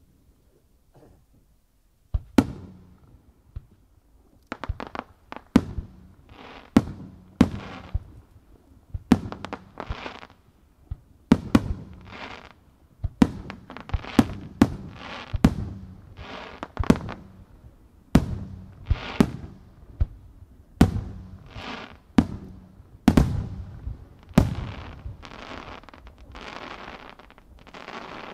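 Aerial firework shells bursting in quick succession, heard from close range: a sharp boom about every second from about two seconds in, many of them trailed by a fading hiss and crackle.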